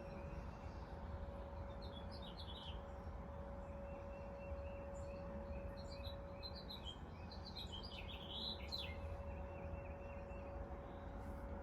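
Outdoor tornado warning siren holding one steady tone as the monthly test winds down, with birds chirping in short runs about two seconds in and again from about six to nine seconds.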